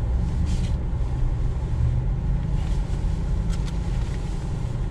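A car's engine idling with a steady low rumble, heard from inside the cabin, with a couple of faint clicks about three and a half seconds in.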